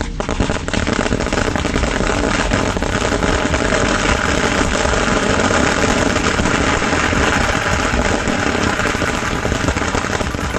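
A 30,000-wala string of small mirchi firecrackers, all thirteen lines lit at once, exploding together. The bangs are so close together that they merge into one dense, unbroken crackle.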